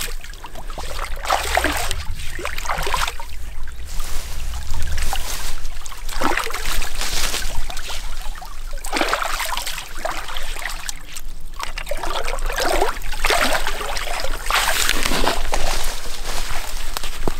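Stream water splashing and sloshing as a dead red deer stag is hauled out through it, in irregular surges every second or two.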